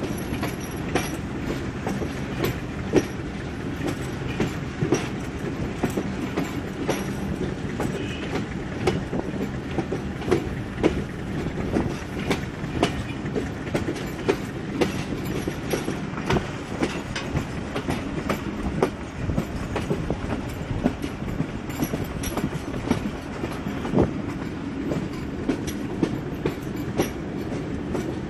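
Passenger train's wheels rolling over the track, heard from on board: a steady rumble with frequent, irregular clicks and clacks from the rail joints.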